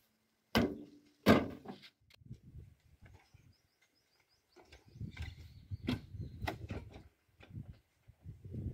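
Knocks and clunks on the metal body of a JCB backhoe loader as a man handles it and climbs up its side: two sharp knocks about a second in, then scuffs and low thuds.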